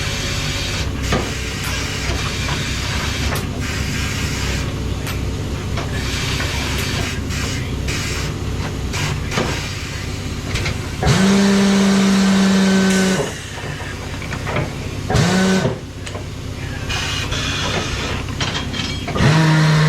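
Tyre changer and shop air at work: a steady hiss with scattered metal clicks and knocks, and a motor humming steadily for about two seconds around the middle, briefly again a few seconds later, and starting up once more near the end.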